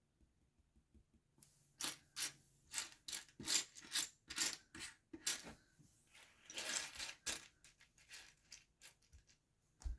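Plastic Lego bricks clicking and rattling against each other as hands rummage through loose pieces, a quick run of sharp clicks with a longer rustle of sliding pieces about two-thirds of the way through.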